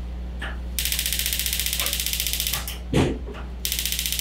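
Gas stove burner's spark igniter clicking rapidly for about two seconds as the burner is lit, then clicking again near the end. A single thump about three seconds in is the loudest moment.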